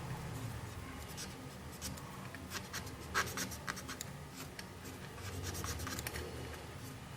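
Light scratching and a run of small clicks from hands handling small tools or parts at a workbench, the sharpest click about three seconds in, over a low steady hum.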